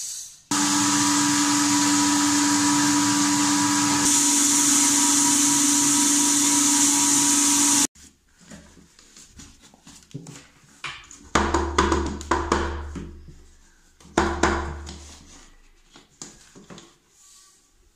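Home electric flour mill (atta chakki) running steadily as it grinds wheat into flour, a steady hum with a high whine; it cuts off suddenly about eight seconds in. Then come knocks, clicks and two low thuds as the mill's steel flour drum and cloth bag are handled.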